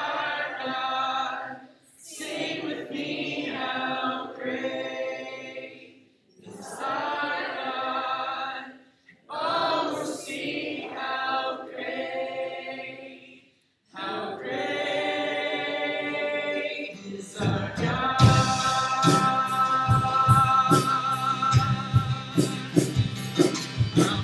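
Worship team singing a church song in short phrases with little or no accompaniment, the voices stopping briefly between lines. About seventeen seconds in the full band comes in with drums and bass under the singing.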